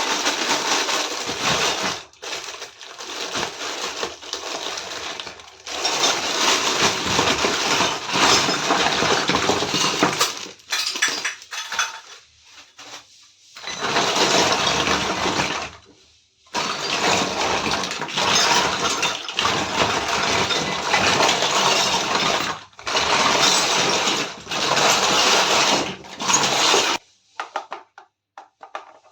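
Miniature toy kitchen set being unboxed and handled: dense rustling and clattering in stretches of a few seconds with short pauses between, stopping shortly before the end.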